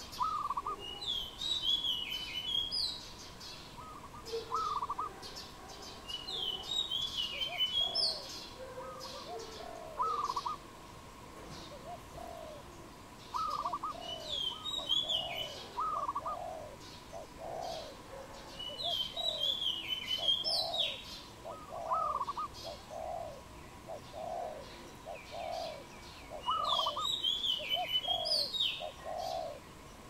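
A dove cooing, a series of soft low notes repeated over and over, with another songbird's high twittering phrase coming back about every six seconds.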